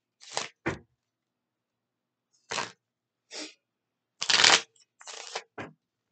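A tarot deck being shuffled by hand in short bursts with pauses between, the longest and loudest stretch about four seconds in.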